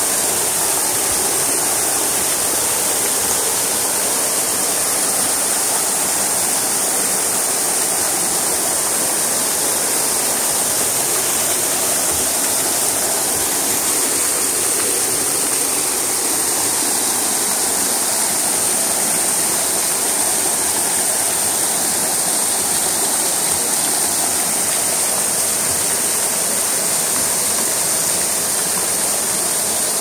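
Bigar Waterfall: many thin streams of water falling over a moss-covered rock dome and splashing below, a steady, even rush of falling water.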